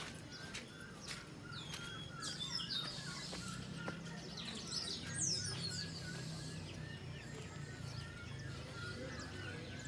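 Birds chirping and calling, with short sharp chirps, the clearest about two to three seconds in and again around five seconds, over steady outdoor background noise and a faint low hum.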